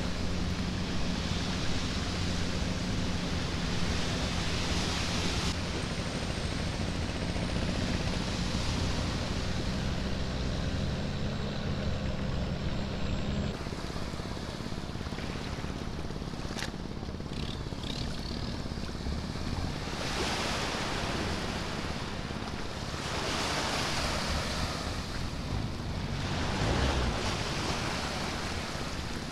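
A boat engine running at a steady low note, which stops about halfway through. Waves then wash onto the beach in a couple of surges.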